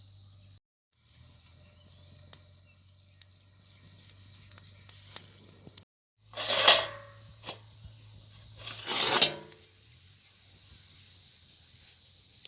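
Crickets trilling steadily in a high, unbroken band, with a low hum under it; it drops out twice briefly, and two short louder clatters stand out about seven and nine seconds in.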